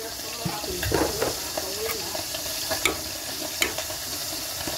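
A spoon stirring sliced koro bean pods into a pot of broth, with a few sharp clinks of the spoon against the metal pot over a steady hiss.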